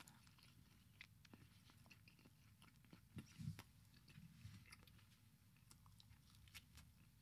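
Near silence: room tone with a few faint scattered clicks and soft low murmurs.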